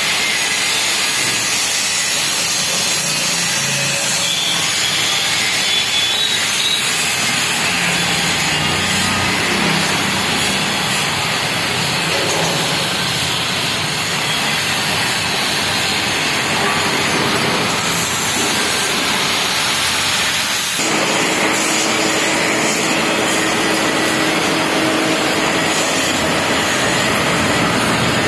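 Woodworking band saw with a steel body running and sawing wood, a loud, steady noise. About two-thirds of the way in, the sound shifts and a steady hum comes in.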